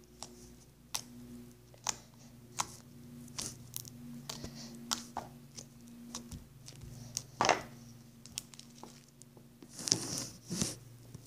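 Fingers squishing and poking homemade slime, giving irregular sticky clicks and pops over a low steady hum. About ten seconds in there is a louder rustle as a hand handles the phone close to the microphone.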